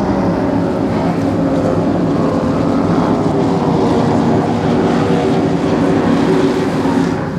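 High-performance powerboat engines running at speed on a flyby: a steady, loud drone of several engine tones over rushing water and wind noise.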